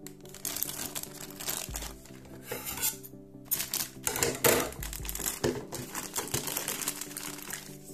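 Thin plastic polybag crinkling and rustling in irregular bursts as hands handle it and pull it open, over background music.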